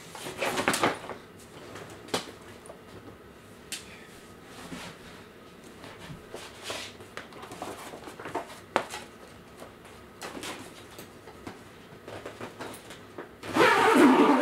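Fabric and reflective lining of a collapsible photo light tent being pulled and tucked over its frame: intermittent rustling and scuffing with a few sharp clicks or knocks, and a loud burst of rustling near the end.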